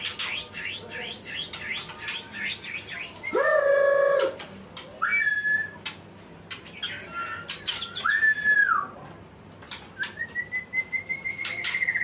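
White-rumped shama (murai batu) singing: a fast chattering run of short notes, then several loud, clear whistled phrases, and near the end a long, slowly rising whistle. Sharp little clicks sound throughout.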